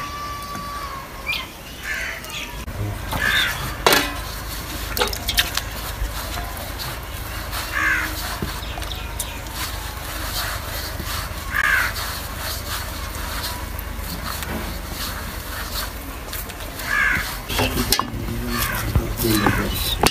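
Crows cawing, a short harsh call every few seconds over a steady low rumble, with a sharp knock about four seconds in.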